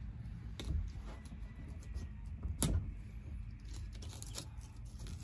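A Dexter knife cutting and scraping around the edge of a snapping turtle's bottom shell, giving scattered small clicks and one sharper click a little under three seconds in, over a steady low rumble.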